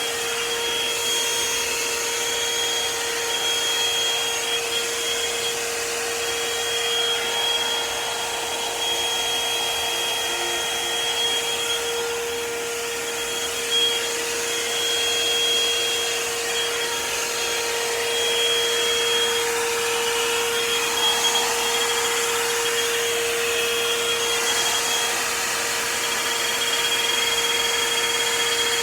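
Revlon One-Step hot-air brush dryer running steadily: a continuous rush of blown air with a steady hum and a high motor whine.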